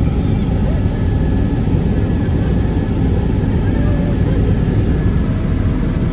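Steady noise of a helicopter in flight, its engine and rotor heard from inside the cabin.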